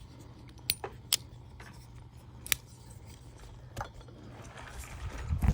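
Civivi Sentinel folding knife being worked open and shut in the hand: a few sharp, separate clicks of the blade and its detent, with some handling rustle near the end.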